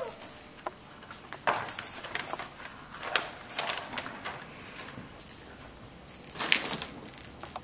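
Small Christmas bells jingling in short shakes as a toddler handles them, several times over, with wrapping paper rustling and crinkling between the shakes; the loudest jingle and rustle come about six and a half seconds in.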